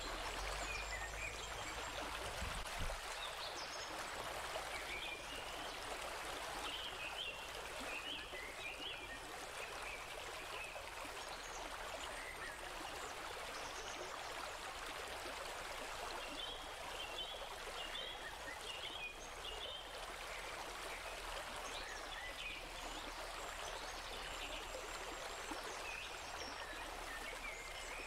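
Steady sound of flowing water, like a running stream, with faint short chirps now and then.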